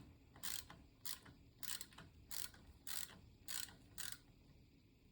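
Ratchet wrench clicking in short strokes, about seven at an even pace, while the fork tube clamp bolt is loosened; they stop about four seconds in.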